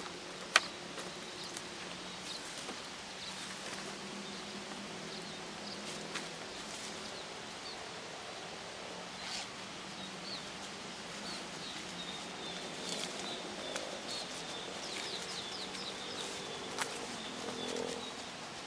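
Outdoor ambience: small birds chirping in short, high calls scattered throughout over a steady background hiss, with a few sharp clicks or snaps, the loudest about half a second in.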